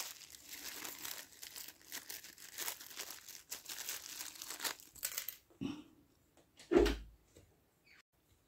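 Rustling and crinkling of the crocheted macramé-cord bag pieces being handled and pinned together with stitch markers, stopping after about five seconds. A light knock follows, then a louder, deeper thump about seven seconds in.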